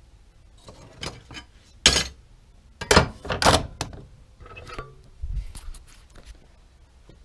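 A run of hard knocks and clunks, like objects being handled on a hard surface: a sharp knock about two seconds in, a quick cluster of knocks a second later, and a duller thump near the middle of the second half.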